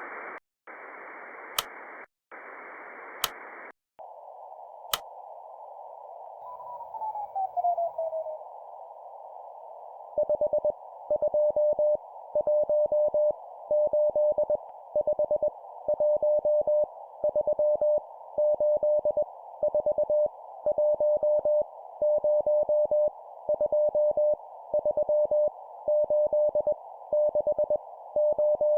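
Radio receiver static, broken by short gaps and three sharp clicks, narrows to a thinner hiss, and a whistle falls in pitch across it. From about ten seconds in, a steady Morse code (CW) tone keys random number groups at 20 words per minute over the static, with short pauses between groups.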